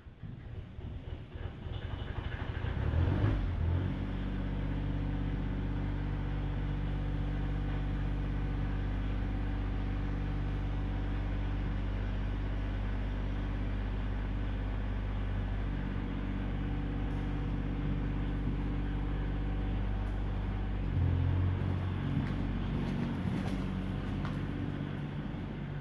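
An engine running steadily at idle. It comes in with a brief swell about three seconds in, and its pitch shifts with another short swell about three-quarters of the way through.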